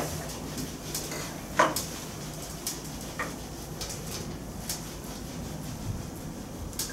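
Whiteboard eraser rubbing across a whiteboard in a series of short strokes, the loudest about one and a half seconds in.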